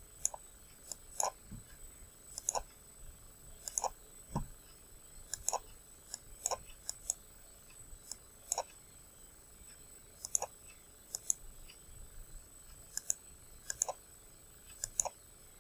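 Computer mouse button clicking irregularly, about once a second and sometimes twice in quick succession, each click a spot healing brush dab on the photo.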